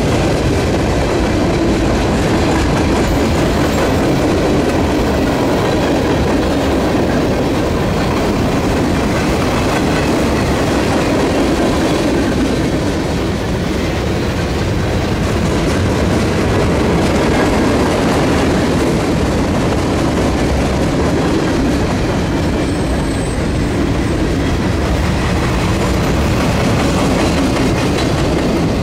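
A long CSX mixed freight train rolling steadily past, loud and continuous, its steel wheels clicking over the rail joints under a heavy rumble of the cars.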